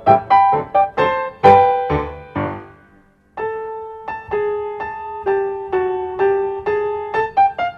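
Light background piano music: a melody of struck notes that falls silent for a moment about three seconds in, then resumes with slower held notes before quickening near the end.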